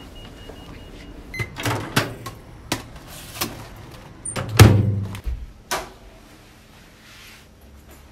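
Clicks and knocks of an apartment door's key, lock and handle as the door is worked, with one heavier thud about halfway through.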